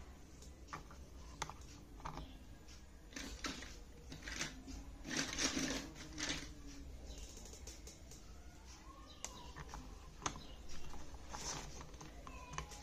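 Plastic toy pipe pieces and wheels being handled and fitted together: scattered sharp clicks and short rubbing rustles, loudest around the middle.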